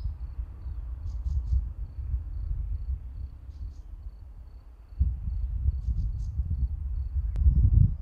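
An insect's high-pitched chirp, pulsing rapidly and evenly, over a low gusty rumble of wind on the microphone that gets louder about five seconds in. A few faint, high, short chirps come and go.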